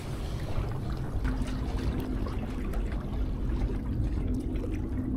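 Sea water lapping and trickling among the tetrapod blocks of a breakwater, with a faint steady hum from about a second in and a few light clicks.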